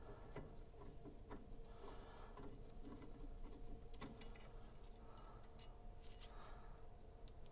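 Faint, scattered small metal clicks and clinks as 4 mm screws are worked out of a metal bracket by hand and set down, over a faint steady hum.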